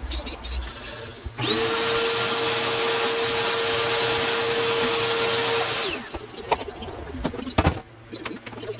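Handheld electric power tool motor spinning up about a second in, running at a steady whine for about four and a half seconds, then winding down. A sharp knock follows near the end.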